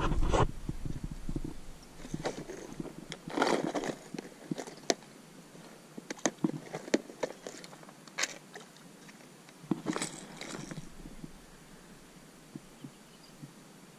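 Rummaging in a plastic tackle box of fishing lures: a knock at the start, then scattered clicks and rattles of hard lures and the plastic lid, with short bursts of rustling handling, dying away about eleven seconds in.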